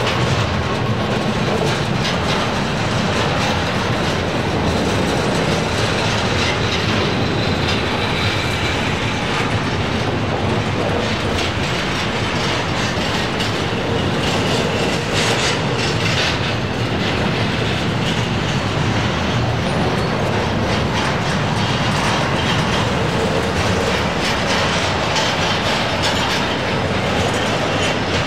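Freight train rolling past steadily, its cars' wheels rumbling and clicking over the rails, with a faint high wheel squeal at times.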